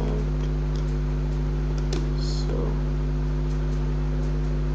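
A steady low electrical hum. Over it come a few faint clicks and, about two seconds in, a short squeak as a small screwdriver turns a screw out of a plastic torch housing.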